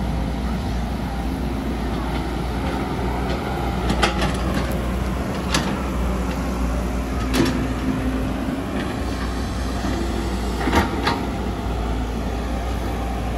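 Caterpillar 312 hydraulic excavator's diesel engine running steadily under digging load, with several sharp metallic clanks as the bucket and arm work the soil.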